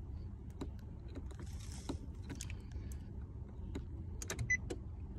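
Scattered light clicks and scrapes of a screwdriver tip pressing against the metal steering column lock of a Nissan Maxima, holding the stuck lock pin pushed in, over a low steady rumble. A brief high beep sounds about four and a half seconds in.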